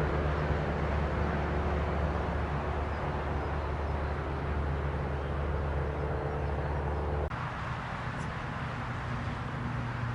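Light propeller aircraft's piston engine running steadily with a low drone. About seven seconds in the sound changes abruptly to a different, lower-pitched engine drone.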